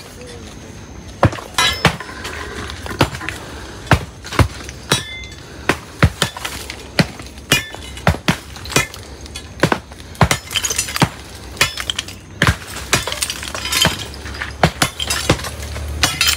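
Hand tools striking the concrete and brick of a grave's covering: irregular, sharp, clinking knocks, about two a second.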